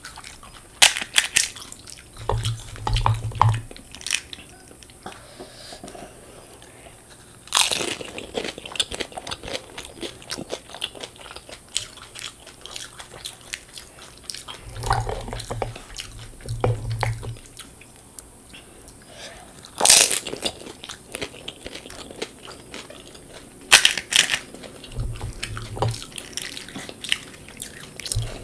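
Close-miked eating of panipuri (fuchka): crisp puri shells crunching as they are bitten, then continuous chewing. A few loud, sharp crunches stand out among the smaller crackles.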